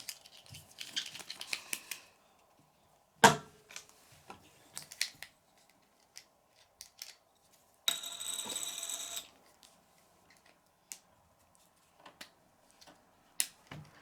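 Small plastic toy pieces from a play cash register set being handled, giving scattered clicks and taps with one sharp knock about three seconds in. About eight seconds in a buzzing, rasping sound lasts about a second and a half.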